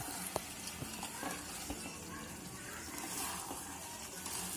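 Chicken pieces sizzling in Schezwan sauce in a pan while being stirred, with a few light clicks of the spatula against the pan.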